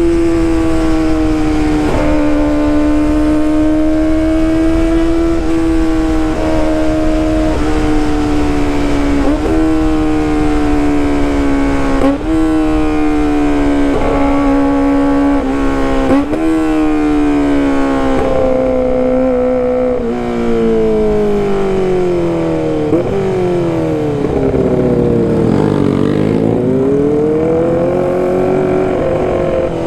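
Kawasaki ZX-25RR's 250 cc inline-four running at high revs through a loud aftermarket exhaust while riding. The pitch holds roughly steady with short jumps and dips every second or two, then falls over several seconds in the second half and climbs again near the end.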